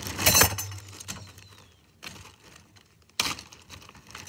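Hands rummaging through a zip-top plastic bag of VEX robotics parts: plastic crinkling and small metal pieces clinking together. It comes in short clattering bursts, the loudest at the start and another about three seconds in.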